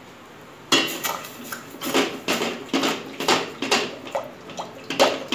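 Wooden spoon stirring rice-flour batter in a stainless steel pot, knocking and scraping against the pot's sides in irregular strokes, about two a second, starting a little under a second in.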